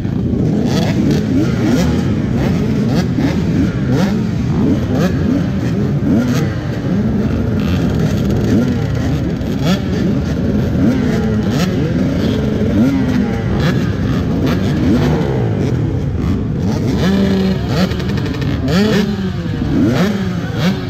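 A crowd of off-road dirt bike engines idling and revving together, with many overlapping throttle blips rising and falling in pitch.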